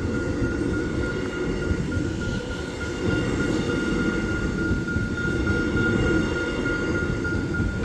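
Alstom X'Trapolis electric suburban train passing through the level crossing, a steady rumble of wheels on rail, with the crossing bells going on as a steady high tone.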